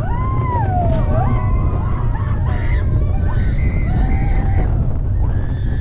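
Slinky Dog Dash roller coaster ride: a constant low rumble of wind and the moving train, with riders' long gliding whoops and cries over it.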